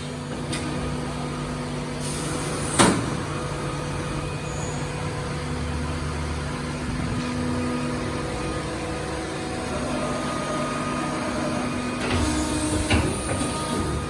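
Hitachi VM40II CNC milling machine running on test, a steady mechanical hum with several held tones. There is one sharp clack about three seconds in, and a short burst of hiss and clatter near the end.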